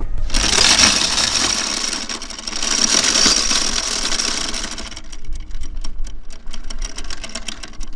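Anchor chain running out over the bow windlass as the anchor is dropped: a loud continuous rattle with a thin high whine, which breaks up about five seconds in into a run of separate rapid clicks.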